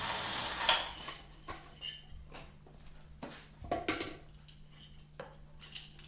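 Steel lifting chain from a hoist clinking and rattling in several separate bursts as it is handled and lowered onto a wooden cant to be hooked up for lifting.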